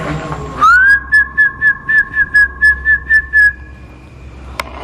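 A person whistling: one rising note, then a quick run of short repeated notes at a single pitch, about five a second, that stops after a few seconds.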